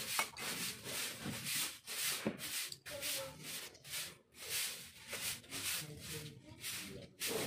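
Repeated dry rubbing strokes by hand on a small starter-motor part, a rasping hiss about two to three times a second, with a brief pause about four seconds in.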